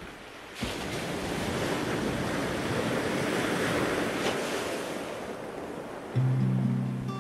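Ocean waves breaking, a steady rush of surf that jumps up in level about half a second in. Guitar music begins near the end.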